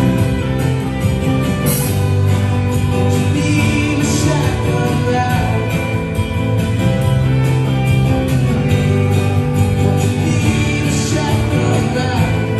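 A band playing a country-rock song, with guitar over a steady drum beat.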